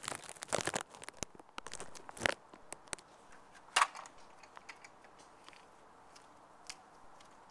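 Handling noise: crackling, rustling and scattered clicks, with two sharper knocks a little over two seconds and nearly four seconds in.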